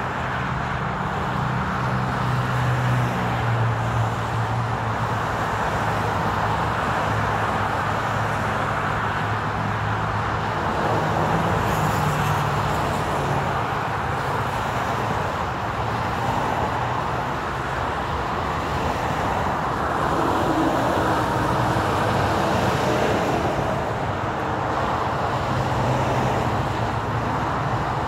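Continuous interstate freeway traffic: the steady rush of tyres from many vehicles passing. A low engine rumble swells and fades several times.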